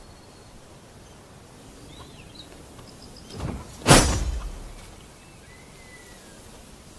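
A single martial-arts fight sound effect about four seconds in: a short swish, then a sharp hit that dies away over about a second. Behind it is a faint outdoor background with a few small bird chirps.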